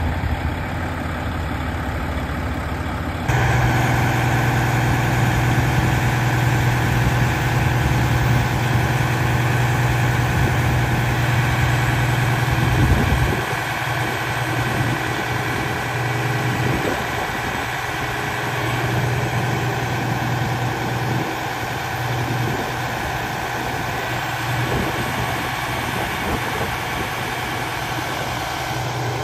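Detroit Diesel Series 60 engine of a 2001 American LaFrance Eagle aerial tower fire truck running steadily at idle, with a low hum. The hum grows louder about three seconds in and eases again about thirteen seconds in.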